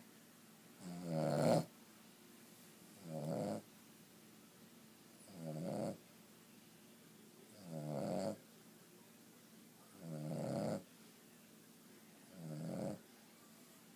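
A sleeping dog snoring steadily: six snores about two and a half seconds apart, each growing louder before it cuts off.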